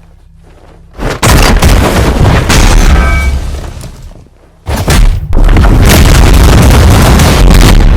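Two loud, distorted booming blasts of a sound effect: the first starts about a second in and fades away over three seconds, the second starts near the five-second mark and stays at full loudness until the end.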